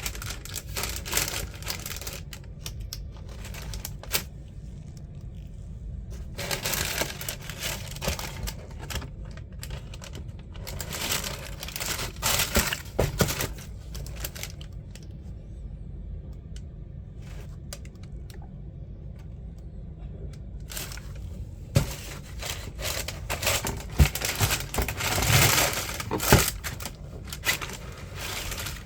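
Packaging being handled during a sneaker unboxing: intermittent rustling and crinkling of paper in several spells, with a few sharp knocks or clicks.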